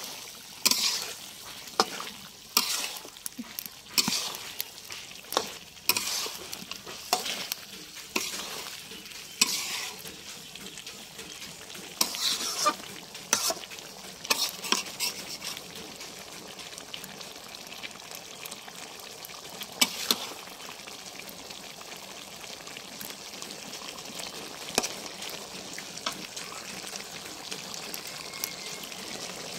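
Chicken curry frying in a metal karahi with a steady sizzle, while a flat metal spatula scrapes and knocks against the pan as the meat is stirred. The scraping comes often in the first half, then only a couple of times as the sizzle carries on.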